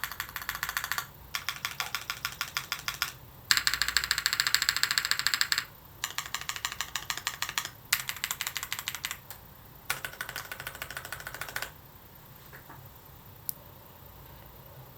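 Typing on a Keycult 2/65 mechanical keyboard with lubed Cherry MX Hyperglide Black linear switches, an aluminium plate and GMK Shoko keycaps. The keys clack in about six runs of fast typing with short pauses between them. The typing stops roughly twelve seconds in, apart from one last keystroke near the end.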